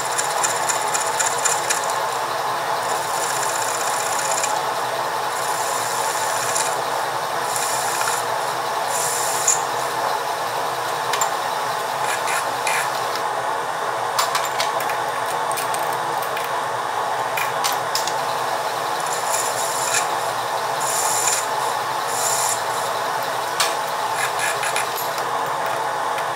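Metal lathe running with its cutting tool taking a cut across the end of a thin-walled titanium tube: a steady machine hum under a continuous scraping cut, with brief high-pitched scratchy spells now and then.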